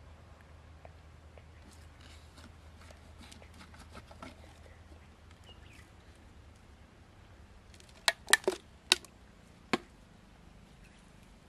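Freshwater mussel shells being handled: light scrapes and small clicks, then a cluster of about five sharp clacks over a couple of seconds near the end as hard shells knock together.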